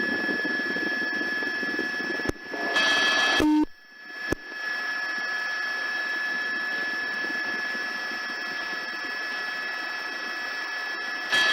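Steady hiss of an open police radio channel with faint steady tones in it, broken about two to four seconds in by a click, a short louder stretch, a brief low beep and another click, as of a transmitter keying on and off.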